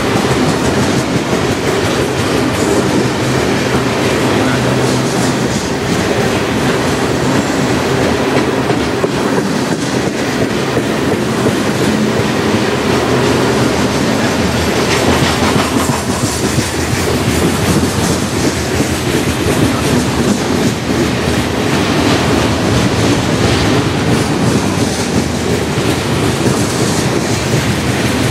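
Freight train of covered hopper cars rolling past: a steady rumble of steel wheels on the rails with a continuous clickety-clack from the trucks.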